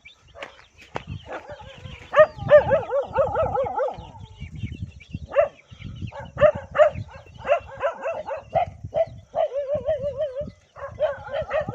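Dogs barking in rapid strings of short, high yelping barks: a farm dog facing off against stray dogs.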